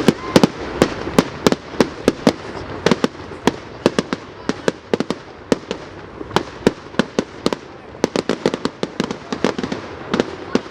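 Fireworks display: a rapid, irregular barrage of sharp bangs and cracks from bursting aerial shells, several a second, over a continuous crackling rumble.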